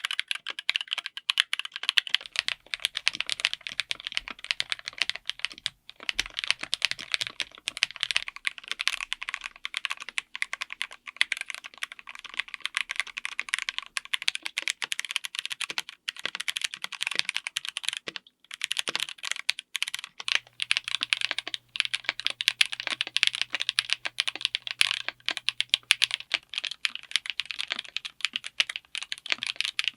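Fast, continuous typing on a full mechanical keyboard fitted with linear switches: a dense run of keystroke clacks. It breaks off briefly about 6 seconds in and again about 18 seconds in.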